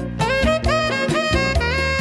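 Jazz music with a saxophone playing the melody, with sliding notes over a walking bass line and regular drum hits.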